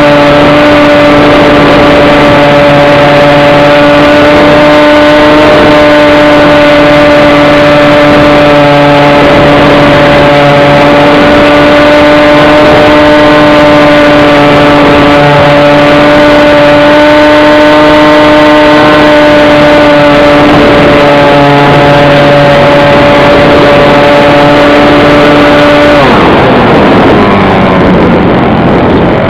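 A small engine running loud and steady at one constant pitch. About 26 seconds in, the pitch drops sharply as the engine is throttled back.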